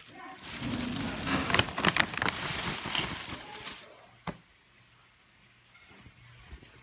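Crinkling and rustling of packaging and plastic as a new plush dog toy, built to hold a plastic water bottle, is pulled out and handled, with sharp crackles. One sharp click a little after four seconds, then it goes quiet.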